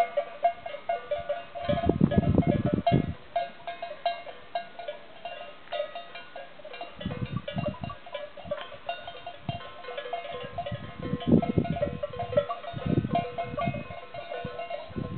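Sheep bells on a grazing flock clanking and tinkling irregularly, many bells of different pitches overlapping. Bursts of low rumble come about two seconds in and again around seven and eleven seconds in.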